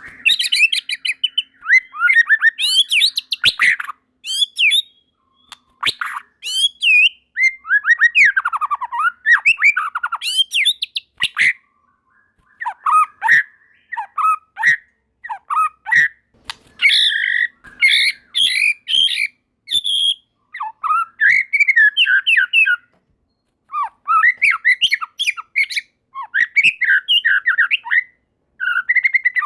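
White-rumped shama (murai batu) singing: bursts of varied whistled phrases, quick slurred notes and harsh clicking notes, with brief pauses between bouts.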